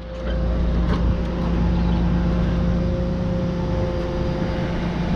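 Crane engine running steadily under load: a low rumble with a constant hum on top.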